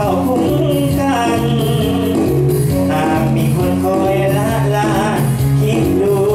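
Male vocalist singing a Thai luk thung song live over a loud backing track.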